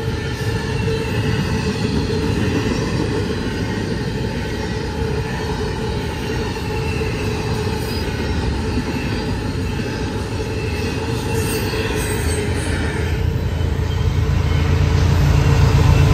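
Double-stack container train rolling past: a steady rumble of railcar wheels on the rails, with some high wheel squeal. Near the end a mid-train diesel locomotive comes by, and its low engine rumble grows louder.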